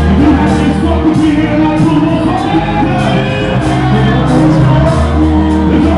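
Live rap performance played loud in a club hall: a heavy bass-driven backing track with a vocal line over it.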